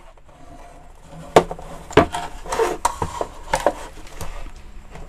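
Plastic housing of a portable Bluetooth speaker being handled and its opened case halves moved: two sharp knocks, then scraping and rubbing of plastic with a few more knocks.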